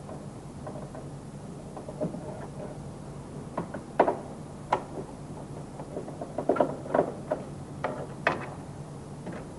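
Small sharp clicks and knocks of a screwdriver against plastic interior trim as the trim around the convertible top's main bearing is pried and loosened. They are scattered at first and come more often about six seconds in, over a steady low hum.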